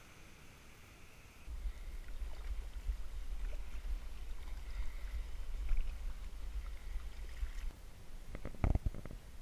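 Ocean Kayak Prowler Elite 4.5 sit-on-top kayak being paddled over light chop. A steady low rumble of water against the hull, picked up close to the hull, starts about a second and a half in, and a few sharp knocks come near the end.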